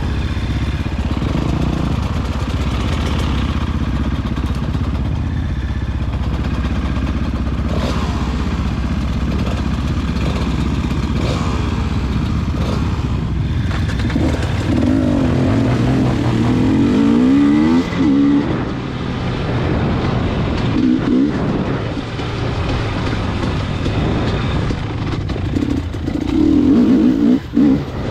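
A motor vehicle running steadily, with louder stretches in the second half.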